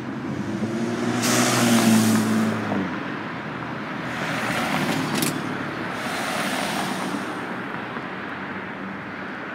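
Road traffic: a motor vehicle's engine running loud and close for the first three seconds, then steady road and tyre noise.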